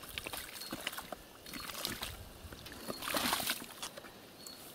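Shovel working wet mud and shallow water in a drainage trench: two main scraping, sloshing strokes about a second and a half apart, the second the loudest, with small knocks of the blade in between.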